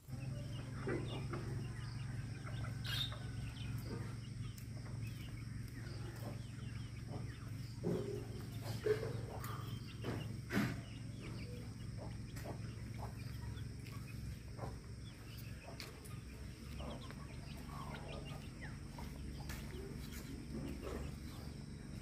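Domestic chickens clucking now and then over a steady low hum, with a few short sharp clicks.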